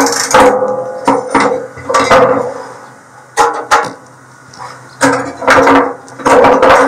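A screwdriver and the sheet-metal RTD probe cover clinking and knocking against the steel inside of a pellet grill as the cover's screws are taken out, in short irregular strikes.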